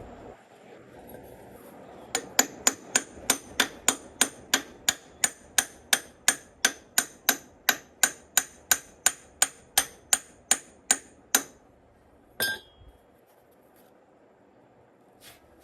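Hammer striking metal in a steady run of about three blows a second for some nine seconds, then one more strike with a short ring.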